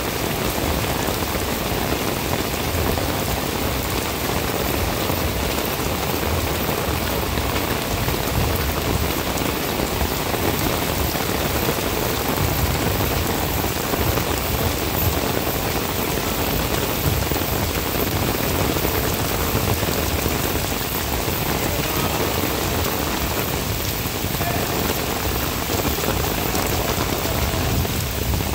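Heavy downpour of rain falling steadily on a paved street and splashing on wet paving stones, a dense, even hiss of rain with no let-up.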